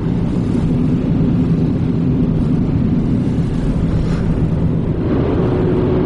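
Steady road and engine noise inside a moving car's cabin at highway speed. A steady hum joins about five seconds in.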